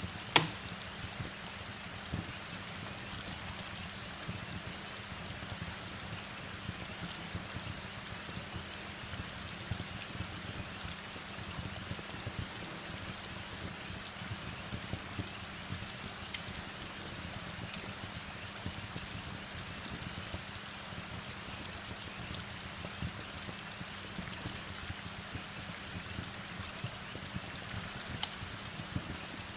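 Steady rain with occasional sharp crackles and pops from a wood fire; the loudest pop comes about half a second in and another near the end.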